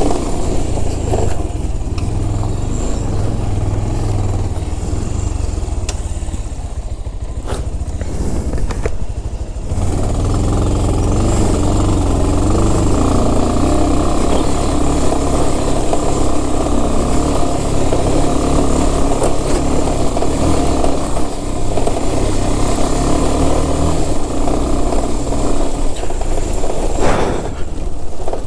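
Motorcycle engine running at low speed over a rough, rocky dirt track. It eases off between about five and ten seconds in, then pulls steadily again.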